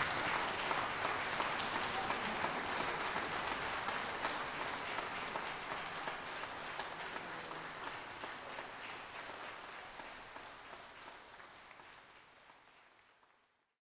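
Concert audience applauding, a dense patter of clapping that fades out steadily and stops just before the end.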